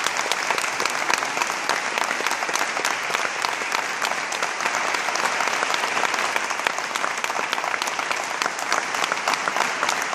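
Audience applauding steadily: dense, even clapping with no singing.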